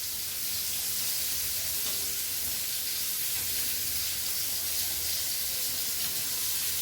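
Steady high-pitched hiss with a faint low hum underneath, even throughout with no distinct knocks or clatter.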